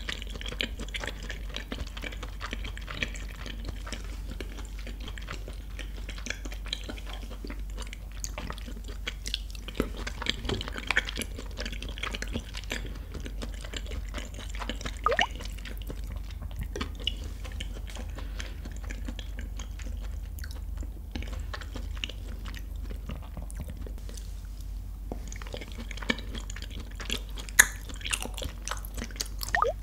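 Close-up chewing of chewy raw beef sashimi dressed with sesame oil: soft wet mouth sounds and small sticky clicks, with a few sharper clicks about halfway and near the end.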